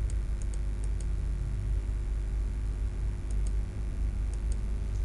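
A computer mouse clicked several times, each click a faint pair of press and release ticks, over a steady low hum.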